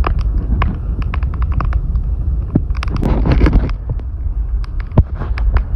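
Log campfire crackling, with scattered sharp pops and snaps, the loudest about five seconds in, over a steady low rumble of wind on the microphone. A short rush of noise comes about three seconds in.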